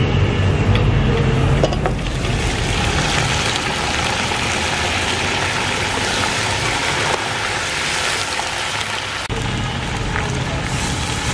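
Raw chicken pieces frying in hot oil with browned onions in an aluminium pot: a steady, loud sizzle over a low rumble.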